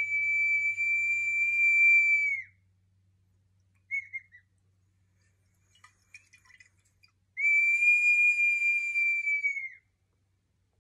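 Double-chambered whistling vessel being tipped and sounding two long, steady, high whistled notes, one at the start and one about seven seconds in, with a short chirp between them.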